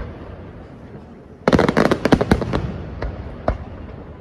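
Aerial fireworks shells bursting. A fading rumble and echo opens, then about a second and a half in a rapid volley of many sharp bangs, followed by a few separate single reports.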